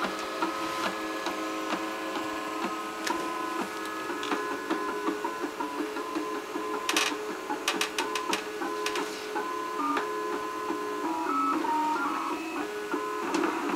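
Makerbot 3D printer's stepper motors whining in tones that keep shifting pitch as the machine moves through its print. A quick run of sharp clicks comes about seven to nine seconds in.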